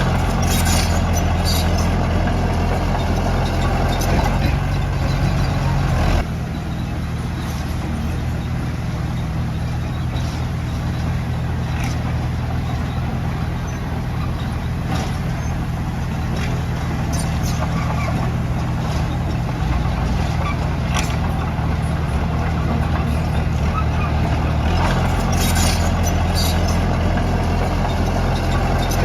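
Komatsu D31P bulldozer's diesel engine running under load with a steady low drone. It eases off about six seconds in and picks up again near the end, with scattered metallic clanks over it.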